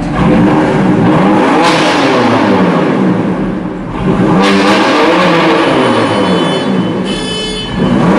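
2018 BMW M4 Competition's twin-turbo straight-six being revved several times, its pitch climbing and falling with each blip of the throttle.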